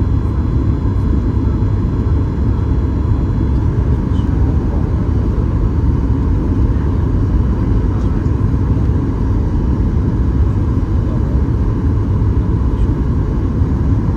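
Steady, mostly low rumble of engine and airflow noise inside the cabin of a Boeing 737 MAX 8-200 on final approach, with a faint steady tone near 1 kHz.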